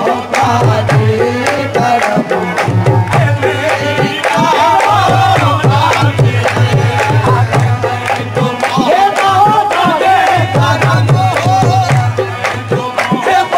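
Qawwali music: tabla drumming with a wavering melody line over it.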